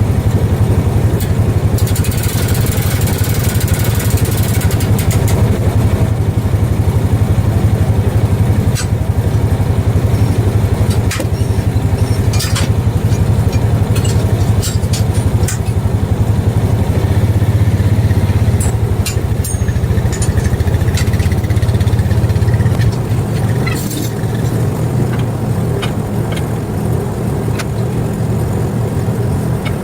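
Portable bandsaw mill's engine running steadily, with scattered sharp ticks and knocks. About 23 seconds in the low hum eases and the sound gets a little quieter.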